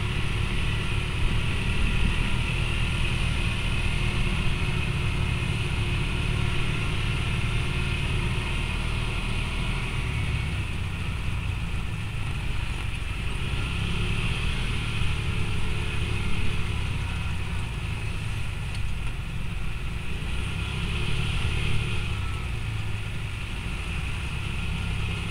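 Engine of an off-road side-by-side utility vehicle running steadily while driving along a dirt track, a continuous low drone.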